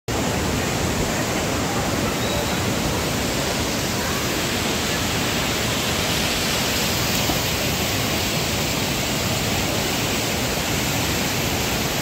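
Steady rush of a fast-flowing river running over rocks.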